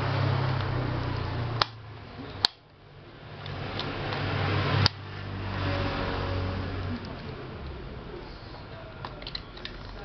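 Small electric motor of a tower fan humming while powered, in stretches broken by sharp clicks of the selector switch. The hum cuts out after the clicks, builds back up and then fades lower near the end.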